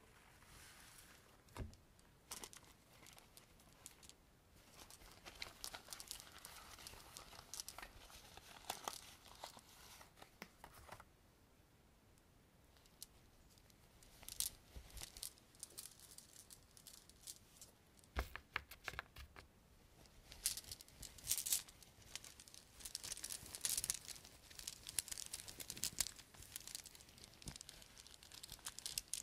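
Close-up crinkling and crackling of a small object being handled on a desk, in irregular bursts of scratchy rustling with two short pauses, densest near the end.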